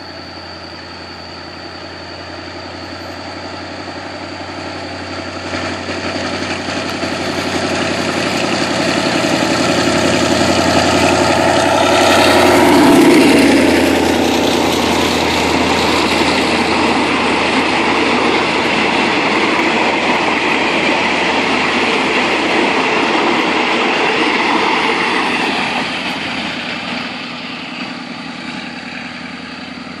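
Passenger train hauled by a diesel locomotive approaching, growing steadily louder, the locomotive passing close about 13 seconds in. Coaches then keep rolling past with the rumble of wheels on the rails, fading near the end as the train moves away.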